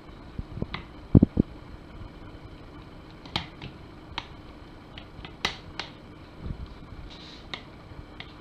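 Silicone pastry brush dabbing over a layer of shredded kataifi dough in a ceramic dish: scattered light crackles and taps, with a few dull knocks about a second in.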